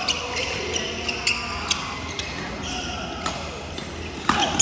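Badminton rally: the shuttlecock is struck back and forth by rackets in a string of sharp pops, while sneakers squeak on the wooden court floor. The loudest hit comes near the end, as a player jumps to smash.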